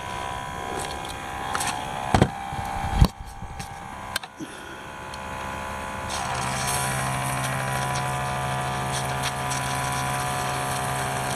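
A few sharp knocks and handling sounds, then about six seconds in a battery-powered sprayer's pump starts and runs with a steady hum and hiss, spraying soapy water onto an ant mound.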